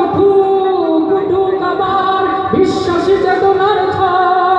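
Men singing a Bengali Islamic gazal into microphones, holding long drawn-out notes, with a new note beginning about two and a half seconds in.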